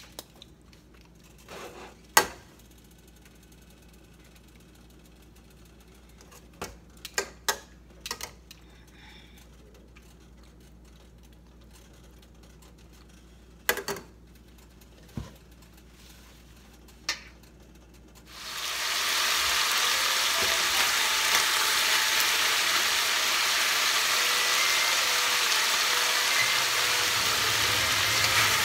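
Metal tongs clicking against a stainless steel pot a few times while chicken pieces are arranged, then, about two-thirds of the way in, a steady sizzle rises within about a second and carries on: marinated chicken thighs frying in hot sunflower oil, giving off steam.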